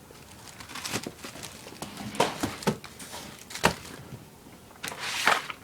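Plastic-wrapped firework packages crinkling and rustling as they are handled, with a few light knocks.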